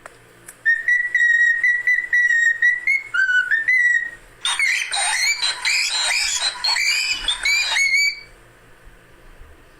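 Cockatiel whistling: a run of short, clear notes held at one pitch for about three seconds, then a busier stretch of quick, tangled warbling notes until about eight seconds in.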